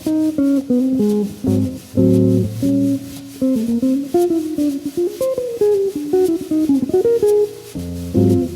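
Jazz guitar playing a fast bebop line of quick single notes, with chords struck near the start and again near the end.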